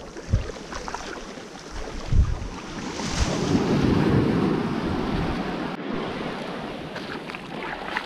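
Small sea waves breaking and washing up the shore: a rush that swells about halfway through and slowly fades. Wind knocks on the microphone in a few low thumps near the start.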